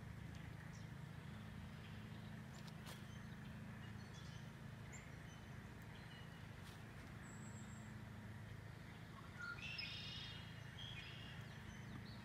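Wild birds chirping faintly around a bird feeder, with one louder call about ten seconds in, over a steady low hum.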